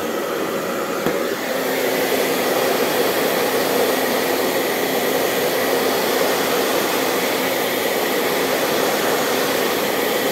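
Hand-held hair dryer running steadily on hot, blowing air into the rear vent grille of an LCD TV to warm its power-supply board. Its tone changes slightly about a second in.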